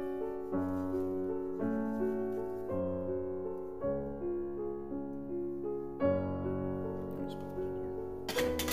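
Background piano music: a slow melody with changing chords. Near the end, a brief clatter.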